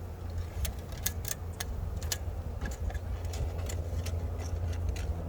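Irregular sharp clicks and light knocks of wooden hive frames and a rubber band being handled, over a steady low rumble.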